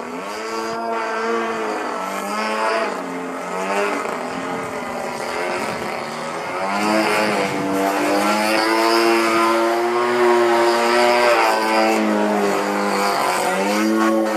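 A Katana 63-inch fun-fly RC airplane's 26cc two-stroke gas engine in aerobatic flight. Its note rises and falls over and over as throttle and airspeed change, loudest from about eight to twelve seconds in.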